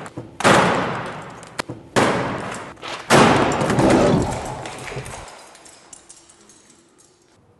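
Three loud bangs, about half a second, two seconds and three seconds in, each dying away over a second or more; the last trails off slowly over several seconds.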